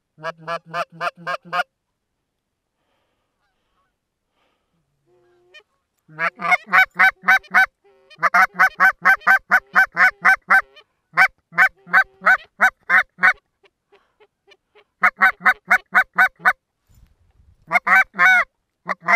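Goose call blown in quick runs of short, identical honks at about five a second, calling to an approaching flock of Canada geese. After the first run there is a quiet gap of about four seconds, then several more runs, and near the end a couple of longer drawn-out honks.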